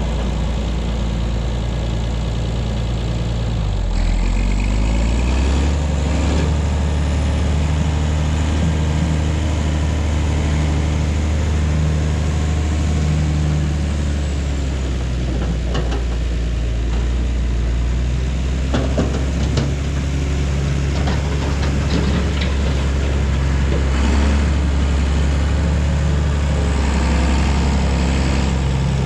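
A heavy engine running steadily; its note shifts about four seconds in, and a few sharp knocks or clanks sound in the second half.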